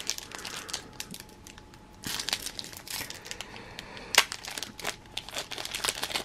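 Foil trading-card wrapper crinkling and crackling as it is handled and twisted in the hands, with a quieter stretch about a second in and one sharp snap about four seconds in.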